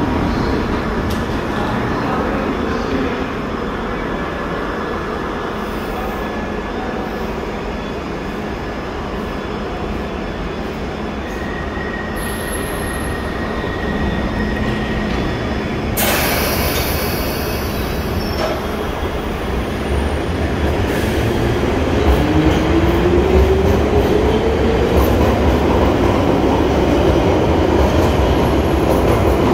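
London Underground Piccadilly line 1973 Stock train standing at the platform, its equipment humming, with a sudden hiss about halfway through. It then pulls away, its traction motors whining and rising steadily in pitch as the running gets louder.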